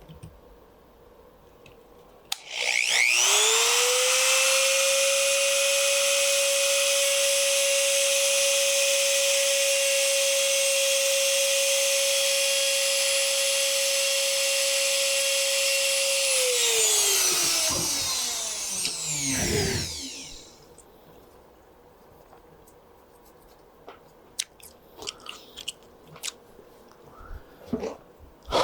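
Small high-speed power tool motor spinning up about two seconds in, running at a steady high whine for about thirteen seconds, then winding down with falling pitch. A few light clicks and taps follow near the end.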